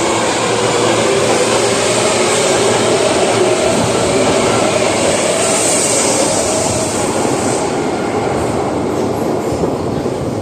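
Osaka Metro 22 series subway train running through the station, a steady loud rumble of wheels on rail with faint wavering tones, easing off a little near the end.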